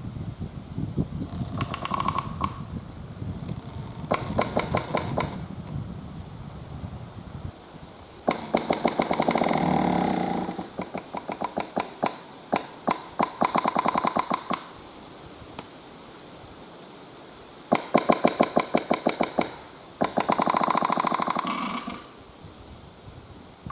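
A widowmaker, a large damaged standing tree, creaking as the wind sways it: about six drawn-out creaks, each a run of rapid clicks, the longest and loudest in the middle, with low wind rumble in the first few seconds. The creaking comes from a tree in rough shape that could come down at any time.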